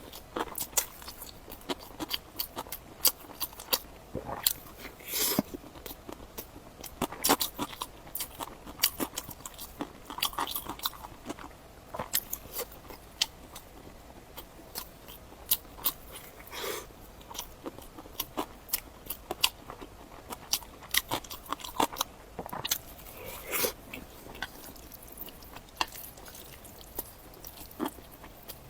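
Close-miked eating: a person chewing and biting food, with irregular crunches and wet mouth clicks.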